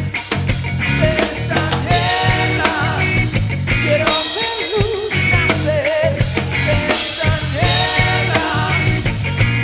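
Music: a song with a steady drum beat under wavering melodic lines.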